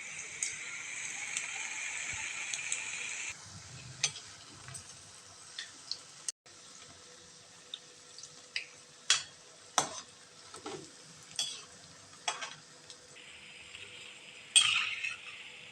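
Batter-dipped sulian balls deep-frying in hot oil, a steady sizzle that stops abruptly about three seconds in. A quieter stretch follows with scattered sharp clicks and clinks, and the sizzle comes back near the end.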